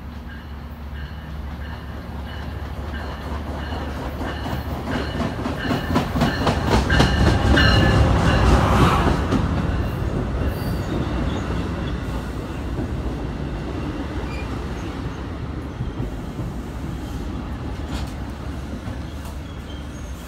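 NJ Transit ALP-45DP locomotive, running on diesel, pulling a multilevel coach set into the station. It gets louder until the locomotive passes about seven to nine seconds in, with wheels clicking over the rail joints, then the coaches roll by more quietly as the train slows.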